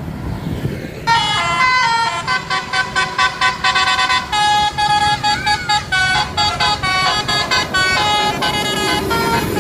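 A tour bus's 'telolet basuri' musical horn, a set of multi-note air horns, playing a quick melody of short staccato notes that starts about a second in, over road noise.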